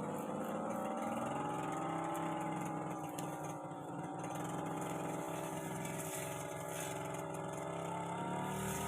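Brush cutter engine running, its pitch rising about a second in, sagging in the middle and climbing again near the end as the throttle and load change.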